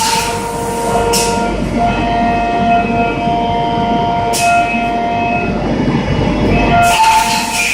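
CNC end mill cutting 7075 aluminium at high speed: a 12 mm three-flute cutter spinning at 14,000 rpm, giving a loud steady high-pitched whine made of several tones. Short bursts of hiss cut in three times.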